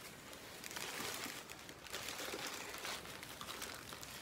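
Faint crinkling and rustling, with small crackles scattered throughout, from pastries being handled and eaten.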